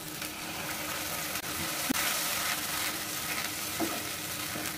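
Onion and tomato masala sizzling in hot oil in a nonstick frying pan as water is poured in and stirred with a wooden spatula. The hiss is steady, with a light tap of the spatula about two seconds in.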